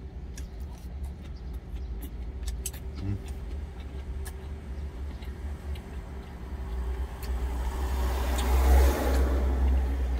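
A steady low engine rumble, with a passing road vehicle swelling up to its loudest about nine seconds in and then easing off. A few faint light clicks come earlier.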